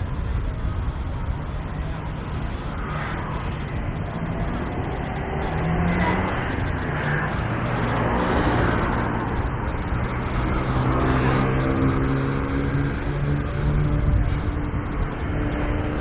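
Road traffic: cars driving past along a street over a steady low rumble, with engine sound swelling from about the middle and staying louder for several seconds.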